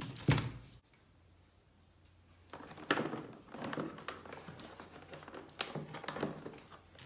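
Parts of a pressure washer and its pressure hose being handled: a sharp knock just after the start, a short lull, then rustling and scattered light knocks.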